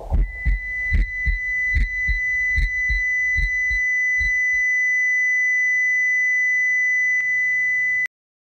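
Dramatic sound-effect heartbeat, low thumps in pairs, fading away after about four seconds, under a steady high electronic beep held like a monitor flatline. Everything cuts off abruptly near the end.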